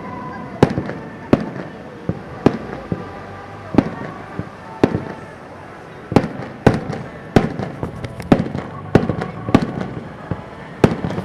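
Starmine fireworks barrage: aerial shells bursting in sharp bangs, about one to two a second at an uneven pace. Heard through the camcorder's built-in microphone under a plastic rain cover, which adds a noisy haze.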